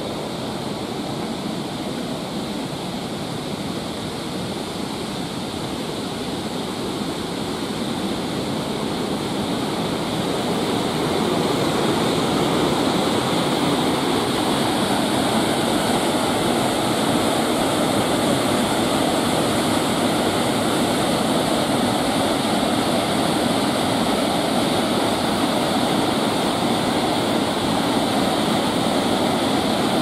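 Sandan Falls, a stepped waterfall, rushing over rock ledges in a steady, loud wash of falling water. It grows louder about ten seconds in, then holds steady.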